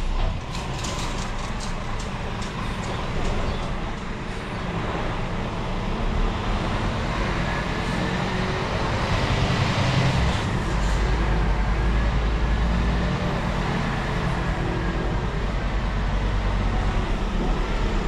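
Scania R-series truck's diesel engine running steadily, with a few light clicks near the start.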